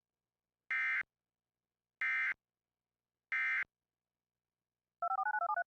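Emergency Alert System end-of-message signal: three short, identical, harsh buzzing data bursts of SAME digital code, about a second and a bit apart, marking the close of the alert. About five seconds in, a quick run of electronic tones begins, stepping up and down between two pitch levels.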